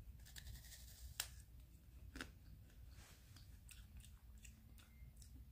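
Faint biting and chewing of a crisp meringue: a scatter of soft crunchy clicks, the clearest about a second and two seconds in, over near silence.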